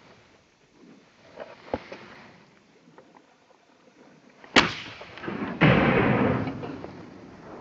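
Two shotgun shots at a flying duck, about a second apart; the second trails off over about a second.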